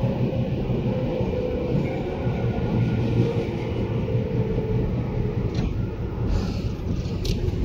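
Tobu 10030 series electric train running, heard from inside the car: a steady rumble of wheels on rail with a faint motor tone, and a couple of sharp clicks near the end.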